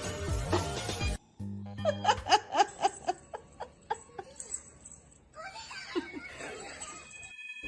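Background music with a person laughing in a run of short, repeated bursts. The sound changes abruptly twice, as the clips switch.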